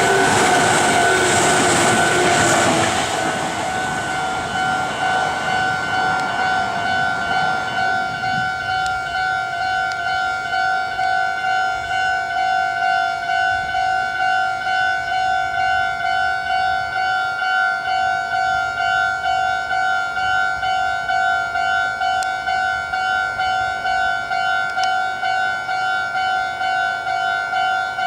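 Meitetsu level-crossing alarm ringing an even, rapid electronic ding-ding throughout. A train running over the crossing is loud for the first few seconds, then fades away, leaving the bell on its own.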